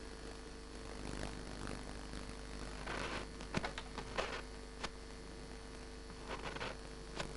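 Steady low hum under quiet room tone, with scattered soft rustles and light clicks of small hand movements, a cluster around the middle and a few more near the end.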